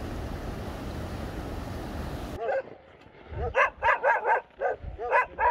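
Steady rushing of a mountain stream over rocks, cut off suddenly after about two seconds by dogs barking in quick runs of sharp barks.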